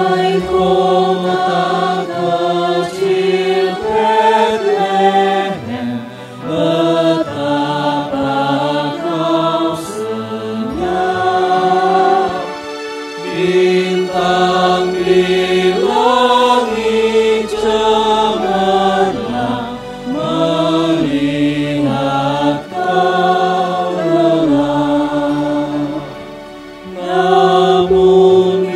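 Small mixed choir of men's and women's voices singing in harmony, holding long notes, with brief breaths between phrases.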